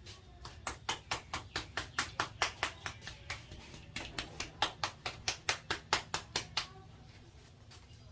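Rapid rhythmic hand slaps of a barber's percussive head massage, about five a second, with a short pause about halfway through.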